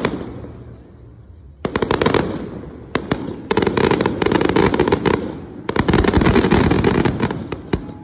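Aerial fireworks going off in rapid volleys of bangs and crackles: a burst about two seconds in, a short one soon after, then two long dense barrages that stop shortly before the end.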